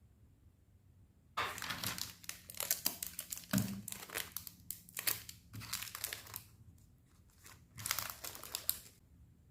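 Packaging crinkling and rustling as it is handled and opened, in irregular spells that begin about a second and a half in and stop near the end.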